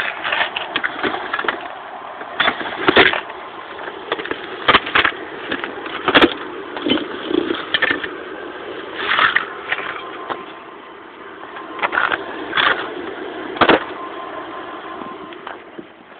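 Someone rummaging through plastic storage bins and gear: irregular knocks, rattles and clatters over steady background noise.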